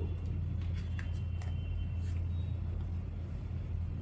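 A steady low background hum, with a few faint taps and slides in the first two seconds as a heart-shaped tarot card is picked up off a wooden table.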